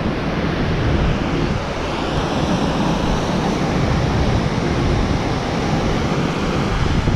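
Mountain river rushing over boulders in white-water rapids: a steady, even rush of water.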